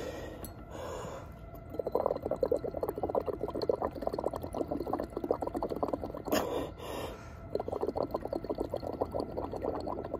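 Breath blown through a straw into a flask of blue indicator solution, bubbling rapidly from about two seconds in, with a short break a little past the middle. The exhaled carbon dioxide is turning the solution from blue to yellow.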